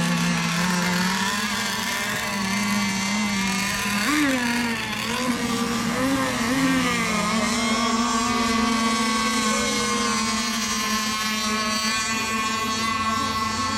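Radio-controlled racing boats' small engines running at speed, a high buzzing whine whose pitch rises and falls a few times around the middle, then holds steady.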